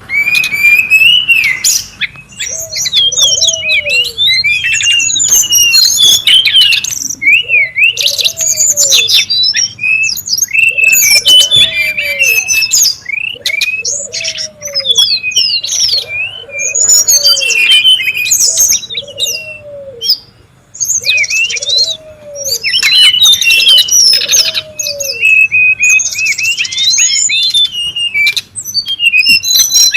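Brown-chested jungle flycatcher calling busily and noisily, a dense run of quick, varied high chirps and twittering phrases with brief pauses. This is the kind of call recording played as a bird-trapping lure and for song training. A lower arched note repeats about once a second through much of it.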